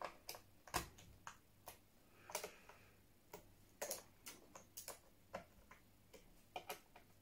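Irregular sharp clicks and taps of hard plastic, about fifteen in all, as the plastic case of a laptop is handled and closed up during reassembly. A short scrape comes about two seconds in.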